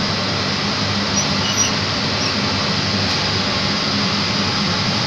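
Direct-fired vapour absorption chiller running with its burner firing: a steady, even noise with a low hum.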